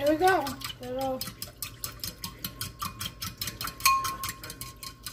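Fork stirring a cornstarch slurry in a glass bowl, clinking against the glass several times a second, with one sharper clink about four seconds in that leaves a faint ring. A brief voice sound comes in the first second.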